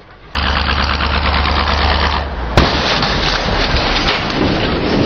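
A vehicle engine running loud and steady, then one sharp bang about two and a half seconds in as the vehicle hits the flaming fridge. A rough, noisy rumble with small crackles follows the bang.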